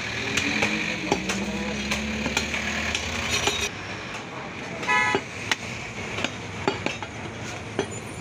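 A steel meat cleaver chopping beef on a wooden log block, with sharp chops every half second or so. A motor vehicle engine runs under the first few seconds, and a vehicle horn gives a short toot about five seconds in.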